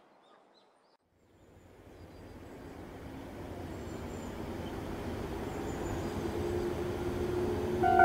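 Outdoor ambient noise with scattered high bird chirps, and a low rumble that grows steadily louder over several seconds.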